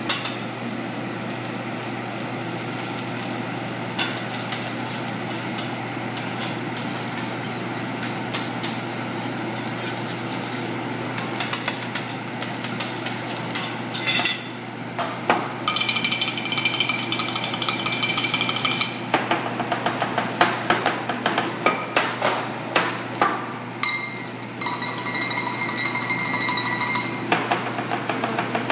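Metal spatulas clacking and scraping on a steel teppanyaki griddle over the steady sizzle of rice frying. In the second half come runs of rapid, ringing metal clangs.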